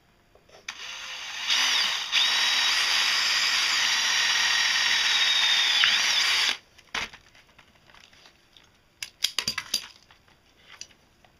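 Cordless drill boring through a copper wire lug clamped in locking pliers: the motor spins up about a second in, runs steadily with a high whine for about five seconds, and stops suddenly. A few light clicks and handling noises follow as the wire is picked up.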